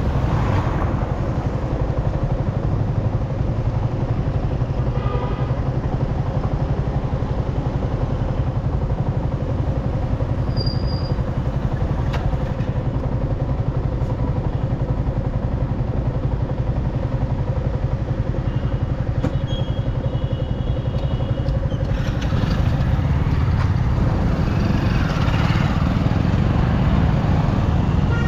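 Motorcycle engine idling steadily at a standstill, then revving and pulling away about 22 seconds in, its pitch rising as it accelerates.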